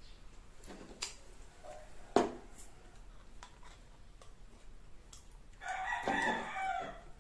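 A metal spoon clicks a few times against the dishes and the glass jar, the sharpest click about two seconds in. About six seconds in, a rooster crows once for just over a second.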